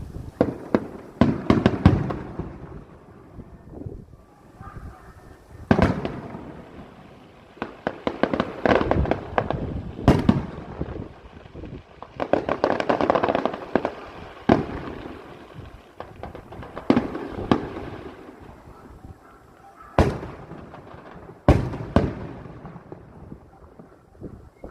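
Fireworks display: aerial shells bursting with loud bangs, often in quick clusters, with stretches of dense crackling between them.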